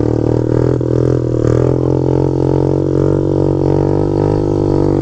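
Kawasaki KLX110 pit bike's single-cylinder four-stroke engine running at a steady cruising speed, heard from on the bike: an even drone that holds its pitch with only a slight waver.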